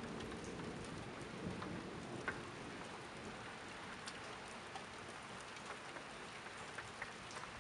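Steady rain falling, with individual drops striking close by every so often.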